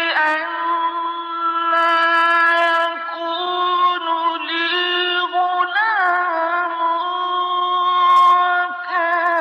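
A male Qur'an reciter chanting in the melodic mujawwad style, drawing out a long melismatic passage at a near-steady pitch, with a wavering ornamental turn about six seconds in.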